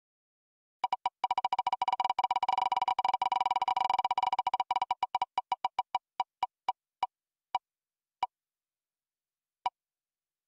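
Spin-the-wheel raffle app's electronic ticking sound effect. A rapid run of ticks starts about a second in and slows steadily as the wheel coasts to a stop, with the last few ticks far apart near the end.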